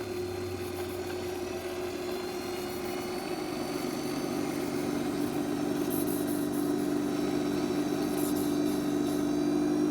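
Stark No. 4 lathe running, a steady machine hum with several held tones. About four seconds in a new, stronger tone comes in and the sound grows a little louder.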